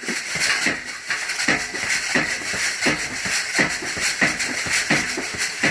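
Quick repeated strokes from a close-quarters drill with a weighted training bar, about three a second, each with a short hissing scuff.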